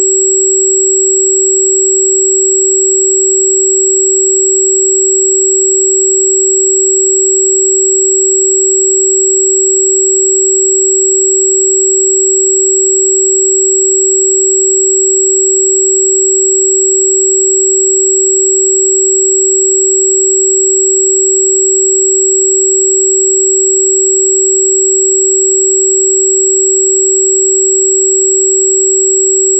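Steady, unbroken pure sine tone at about 383 Hz, the 382.605 Hz frequency listed for Di Gu Pi (wolfberry root bark), with a very faint high whine above it.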